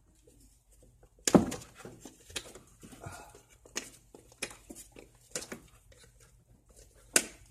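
Spark plug wire boots being pulled off a Chevrolet Silverado's distributor cap: a run of small clicks and knocks, with a sharp knock about a second and a half in and another near the end.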